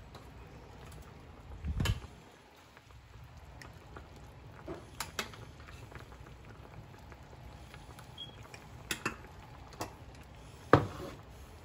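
Kitchen serving sounds: a few sharp clinks of a utensil against a small stainless steel saucepan as chicken and dumplings are tipped and scooped into a bowl, over a low bubbling from a simmering pot. The loudest is a clunk near the end as the saucepan is set down on the glass-top stove.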